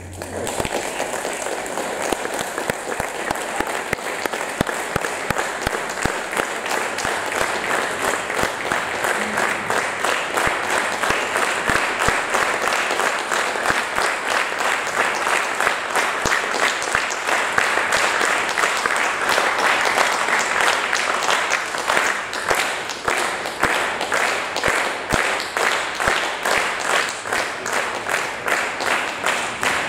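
Audience applauding. After about twenty seconds the clapping falls into an even rhythmic beat.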